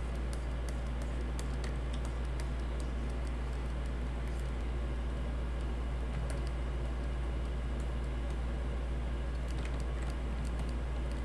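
Light, irregular clicking of a computer keyboard, thicker in the first few seconds and sparser afterward, over a steady low electrical hum.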